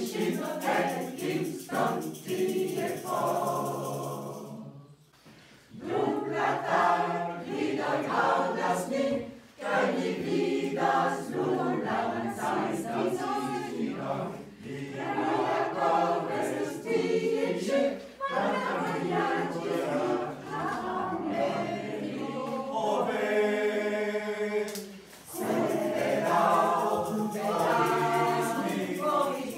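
Mixed choir of men's and women's voices singing, with a brief break about five seconds in and a long held note about three-quarters of the way through.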